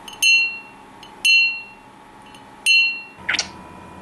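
Three bright bell-like dings, each struck sharply and ringing out briefly, spaced about a second apart. About three seconds in comes a short call that glides up and down in pitch.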